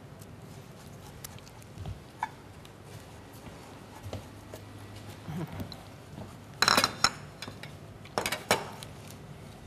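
Small knife cutting into a tomato with faint ticks, then a loud clatter of metal utensils against dishes about two-thirds of the way through, followed by two sharp clinks a second later.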